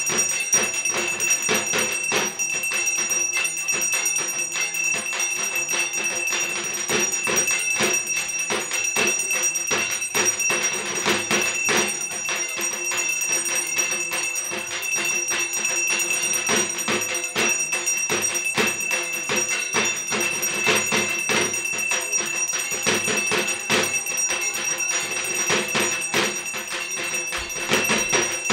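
Fast, continuous percussion with metal bells ringing without a break: the accompaniment of a Durga Puja aarti.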